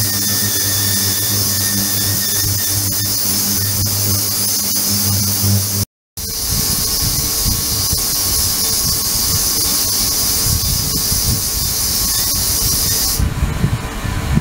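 Ultrasonic cleaning bath running: a steady high hiss with a low hum under it, cut by a brief silence about six seconds in. After that a low uneven rumble replaces the hum, and the hiss stops shortly before the end.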